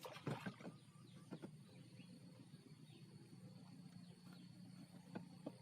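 Near silence: faint steady background hum with a cluster of soft clicks and taps in the first half second and two more about five seconds in.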